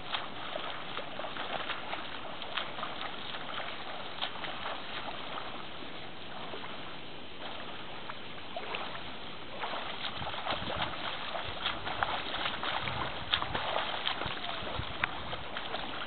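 Rippling reservoir water lapping and splashing lightly, with many small scattered splashes. From about ten seconds in, wind buffets the microphone in low gusts.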